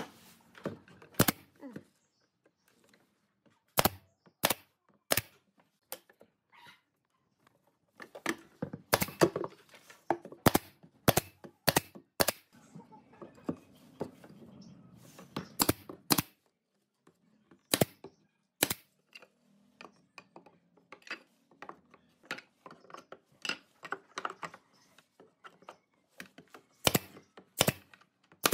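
Irregular sharp knocks and clicks of wooden bench parts being fitted and driven together, with the shots of a pneumatic nail gun. The strikes come singly and in quick clusters, with two a little under a second apart near the end.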